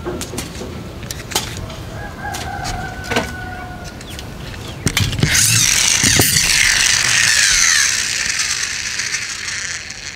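Plastic clicks and knocks of toy stunt trucks being handled, then about five seconds in a loud whirring from a yellow toy tractor's friction (inertia) motor as it is pushed along the table, dying away as the flywheel spins down.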